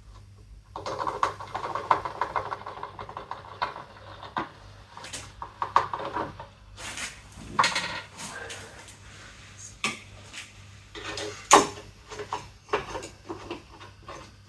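Irregular clicks, knocks and light clattering from parts and containers being handled, with a few sharper knocks around the middle and one loud knock past two thirds of the way through.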